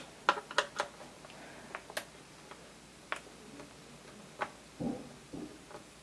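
Light, scattered clicks of a small screwdriver on the screws and hard plastic base of a ThinkPad T61 laptop as it is worked. There are three quick clicks in the first second, then single ones about a second apart.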